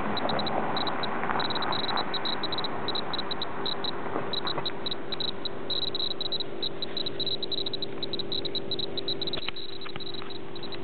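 Clear-Pulse Mr. Gamma A2700 gamma dosimeter's buzzer giving short high pips at irregular intervals, several a second, each pip a detected gamma ray. A steady low hum runs underneath, and a few handling knocks come near the end.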